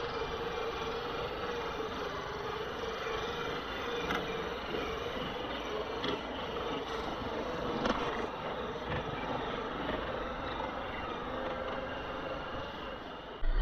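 Electric motor and geartrain of an Axial Capra-based 1/10-scale RC crawler whining steadily at a low crawl over river gravel. A few sharp clicks of stones come from under the tyres, over a steady rush of noise from the river.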